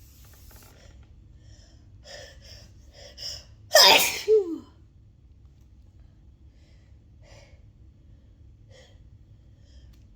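A person's single loud sneeze about four seconds in, part of a sneezing fit: a few quick catching inhalations build up to it, and it ends in a falling voiced "choo". Faint short breaths follow.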